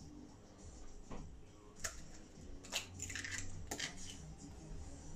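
Faint crunching and a few short clicks of an eggshell being cracked and prised apart by hand over a glass mixing bowl.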